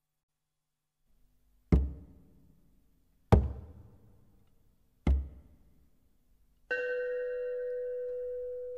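Soundtrack music: three heavy drum hits, each about a second and a half apart and ringing away, then a steady held chord coming in about seven seconds in.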